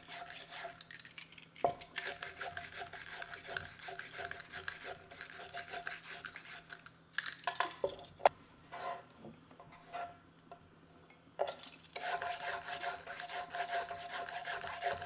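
A vegetable peeler scraping down carrots in quick, repeated strokes. About halfway through, a few sharp knocks come, then the scraping pauses for a few seconds before starting again.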